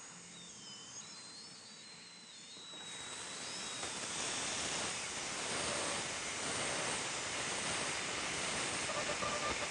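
Contra-angle dental handpiece drilling a pilot hole into a tooth root for the Benex extraction screw. A thin, wavering whine in the first few seconds gives way to a louder, steady hiss from about three seconds in.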